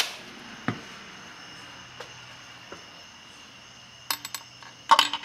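Steel gearbox shaft clinking against a ball bearing and the aluminium case of a Minarelli-type scooter engine as it is test-fitted by hand after being sanded down from oversize. There are a few sharp metallic clinks about four seconds in and again at the end, and otherwise a low background.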